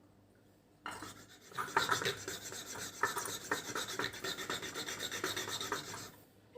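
Rasping, scraping and rubbing noise with irregular light knocks. It starts about a second in and stops shortly before the end.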